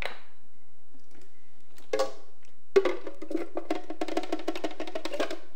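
Frozen pineapple chunks clattering into a Vitamix blender's plastic container as they are poured from a jug: a single knock about two seconds in, then about halfway through a rapid run of hollow knocks that stops shortly before the end.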